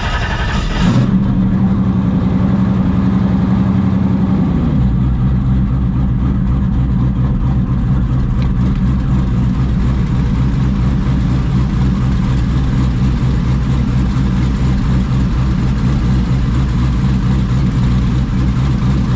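Mini jet boat's inboard engine being started: the starter cranks and the engine catches about a second in, runs at a fast idle, then drops to a lower, steady idle a few seconds later and keeps idling in neutral.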